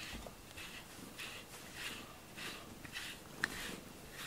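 Soft rhythmic rubbing strokes, about two a second, with a brief faint click about three and a half seconds in.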